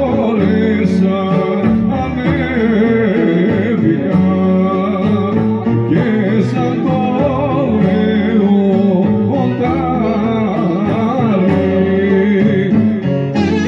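Live band playing dance music through a microphone and speakers: a singer over violin and other string instruments, with a steady beat.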